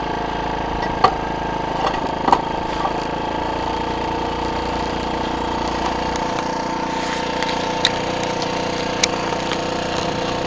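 Motorcycle engine idling steadily, with a few short sharp clicks over it.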